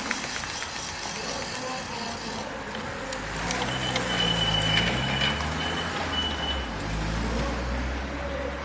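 Roadside street ambience: a car drives past slowly, with faint music in the background.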